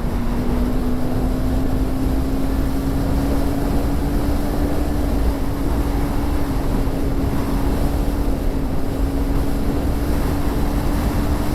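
KTM 390 Duke's single-cylinder engine through its stock exhaust, held at a nearly steady pitch as the bike cruises in one gear, under heavy wind rush on the microphone.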